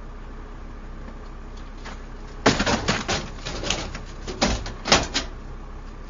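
Ambulance gurney rattling and clacking as it is moved in or out of the ambulance: a quick run of clatters and knocks starting about two and a half seconds in, with sharp knocks near the start of the run and again near its end.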